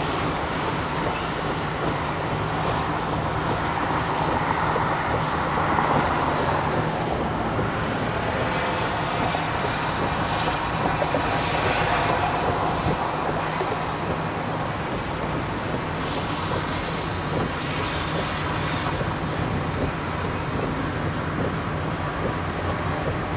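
Steady engine and road noise inside a moving car, a continuous drone with a low hum underneath.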